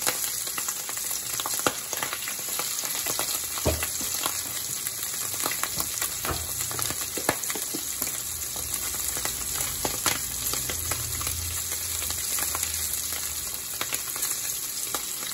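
Salmon fillets frying in oil in a stainless-steel skillet: a steady sizzle with frequent small pops and crackles.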